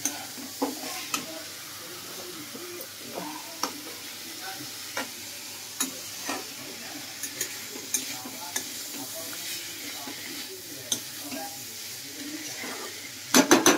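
Futko being stir-fried in masala in a metal kadai with a metal spatula: a steady sizzle with scattered scrapes and knocks, and a quick, louder run of scraping clatters near the end.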